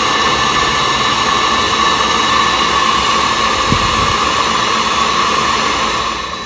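Electric tilt-head stand mixer running steadily at speed, a loud even motor whir with a whine, beating the last of six eggs into cream cheese pound cake batter. It drops somewhat in level near the end.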